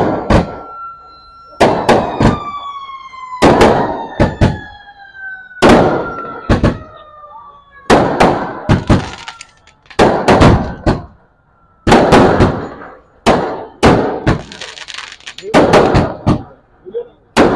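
Fireworks bursting overhead: a run of sharp, loud bangs, one or two a second, with thin whistling tones slowly falling in pitch behind them.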